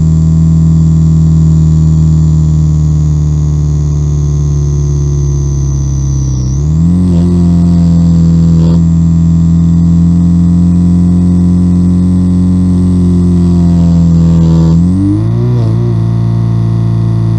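Homemade electronic engine-sound effect imitating a Subaru EJ20 boxer's equal-length-header exhaust: a loud, steady, buzzing drone of stacked tones like an engine held at constant revs. The pitch dips and climbs back about six and a half seconds in, then rises again near the end.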